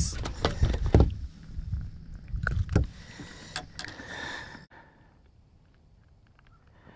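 A freshly caught bass flopping and thudding on the carpeted deck of a bass boat and being grabbed, with a string of low thumps and knocks for the first few seconds. After about four and a half seconds the sound drops suddenly to faint open-air quiet.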